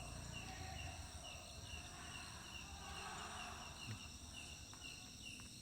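Insects chirping: one short, regular chirp repeating close to three times a second over a steady high-pitched buzz, with a low background rumble.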